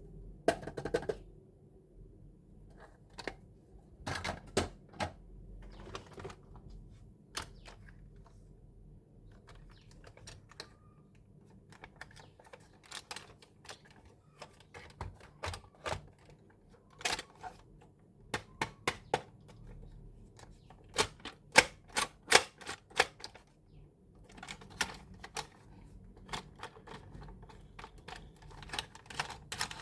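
Irregular sharp clicks and taps of a plastic toy and its packaging being handled during unboxing, coming in quick clusters, busiest about two-thirds of the way through.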